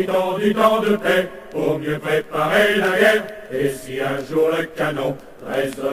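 Low voices chanting in short, steady-pitched phrases: a sung or chanted soundtrack.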